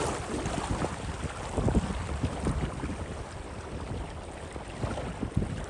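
Wind buffeting the microphone in uneven gusts over the steady rush of river water.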